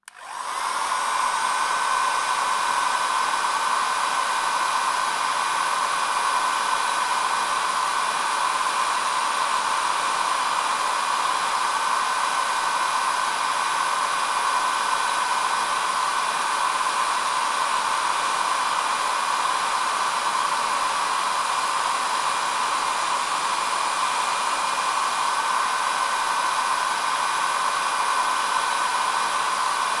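Hair dryer switched on, its motor spinning up over about a second, then running steadily: an even rush of blown air with a steady high whine.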